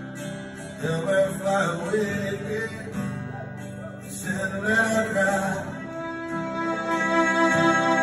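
Live band music: acoustic guitar strumming under a melodic instrumental line, with no singing.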